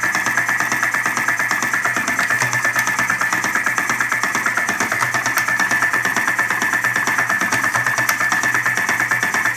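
Top-O-Matic electric hopper-fed cigarette-tube filling machine running as it fills tubes: its small 12-volt motor gives a steady whine over a low hum, with a fast, even rattle of the feed mechanism.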